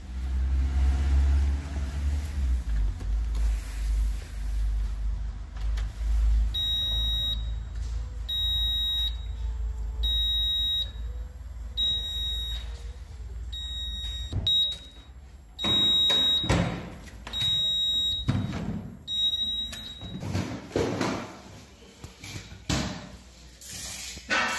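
A digital insulation resistance tester beeps repeatedly, about nine short high beeps spaced roughly 1.7 s apart, while it tests the insulation of a 12 V floor-heating cable. A low rumble on the microphone runs under the first half, and handling and rustling noises come in the second half.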